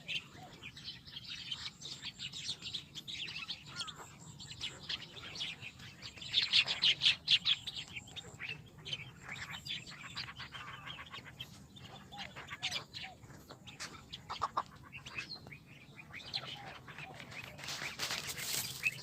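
Many small birds chirping and calling at once in a dense, overlapping chorus, busiest about six to eight seconds in, over a faint steady low hum.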